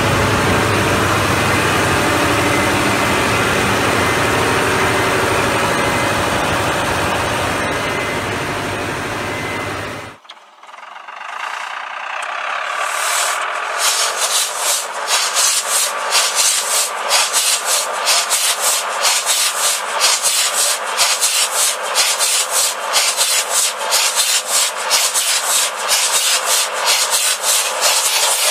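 A large stationary multi-cylinder diesel engine running steadily for about ten seconds, then a cut to a 16-cylinder EMD 645 diesel starting up: the sound builds over a few seconds and settles into a loud rasping run with about three pulses a second.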